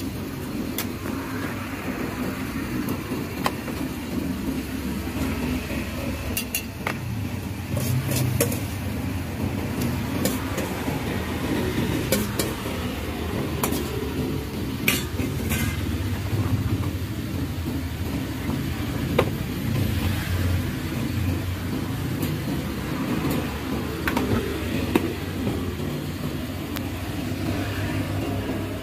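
Steady low rumble of passing road traffic, swelling now and then as vehicles go by. Over it come scattered sharp clinks of metal on metal: a fork and a steel bowl knocking against a stainless steel cup as egg and chopped spring onions are mixed.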